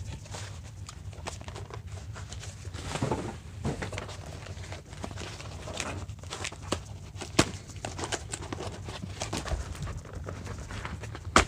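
A mailed package being handled and opened by hand: irregular clicks, taps and rustles of cardboard and packing material, with a few sharper knocks.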